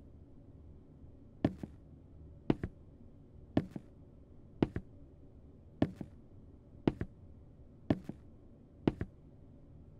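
A slow, even run of paired thumps: eight pairs about a second apart, each a strong thump followed closely by a weaker one.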